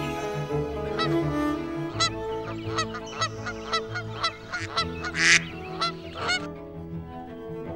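Waterfowl calling in a string of short, sharp honking calls, repeated at uneven intervals and stopping about six and a half seconds in. Background music with long held notes plays underneath.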